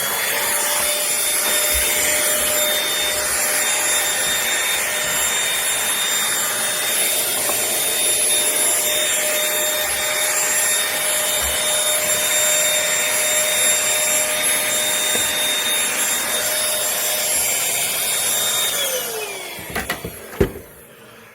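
Bissell Featherweight corded stick vacuum running at a steady high whine, a suction-only machine with no beater brush. Near the end its motor winds down in pitch and stops, followed by a couple of thumps.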